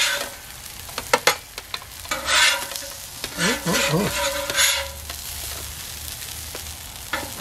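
Metal spatula scraping across the steel griddle top and knocking against an aluminum sheet pan as cooked fish pieces are scooped off. There are two sharp taps about a second in, then several short scrapes.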